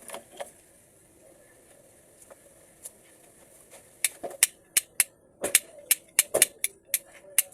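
Irregular sharp clicks and taps, like small parts and tools being handled, about a dozen in quick succession in the second half after a quieter start.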